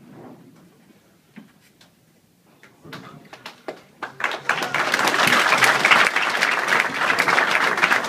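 A crowd in a large hall bursts into loud, sustained applause about halfway through, after a few quieter seconds of scattered clicks and murmur.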